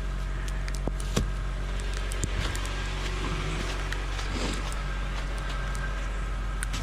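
Car engine idling steadily, heard from inside the car, with a few light clicks and knocks scattered through it.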